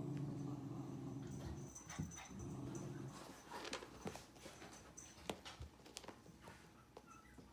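American Cocker Spaniel puppy growling in low, rough rumbles, twice in the first three seconds, then pawing and scratching at the towel under it with scattered scrapes and clicks.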